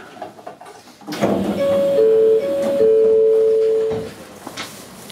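Electric train's horn sounding two steady tones, a higher and a lower one overlapping, held for about two and a half seconds and then cut off sharply. Train rumble rises beneath it from about a second in.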